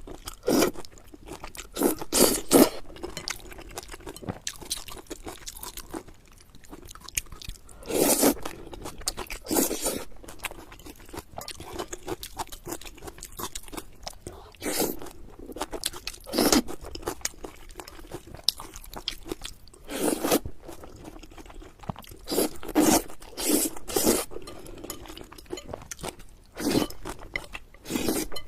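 Close-miked eating of chicken and noodles: loud crunchy bites and chews recurring every few seconds, about a dozen in all, with quieter chewing between them.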